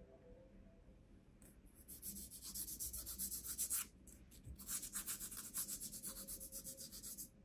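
A glitter-coated foam star rubbed against a palm, a quick, rhythmic, faint scratchy rasping. It comes in two spells with a short break about four seconds in.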